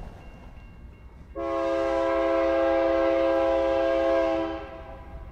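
Diesel freight locomotive's multi-chime air horn sounding one long blast of about three seconds, a steady chord that cuts in sharply about a second and a half in and stops near the end, over the low rumble of the approaching train.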